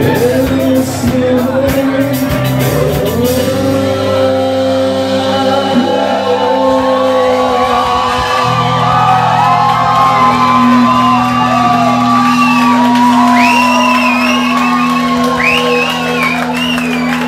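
Live band playing: drum hits for the first few seconds, then long held notes ringing out, with high wavering voices over them in the last few seconds.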